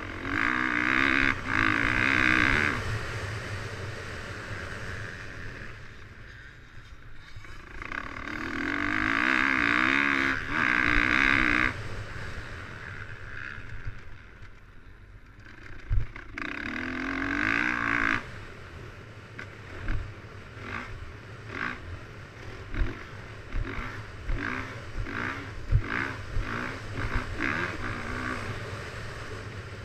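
Dirt bike engine on a motocross track, revving hard in three long throttle pulls and then in a quick string of short throttle blips near the end. A few sharp knocks cut through, with steady wind rumble on the onboard camera's microphone.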